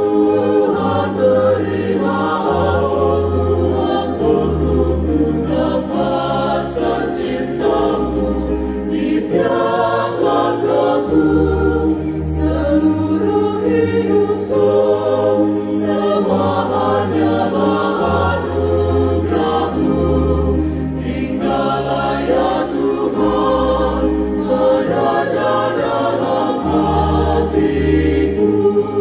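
Small choir of women and men singing a hymn in several harmonised parts, with sustained sung notes over a low bass line whose notes are each held a second or two.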